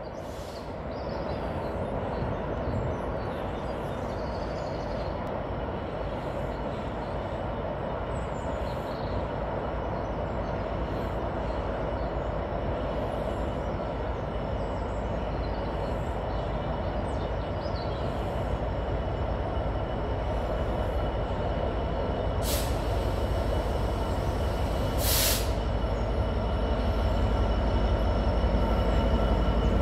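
Class 66 diesel locomotive's two-stroke V12 engine running as it hauls a container train slowly towards the listener, a steady low rumble that grows gradually louder. Two brief hisses sound a few seconds apart in the last third.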